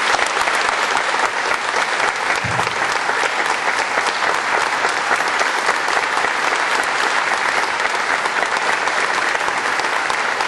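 A large audience applauding steadily, a dense, sustained clapping.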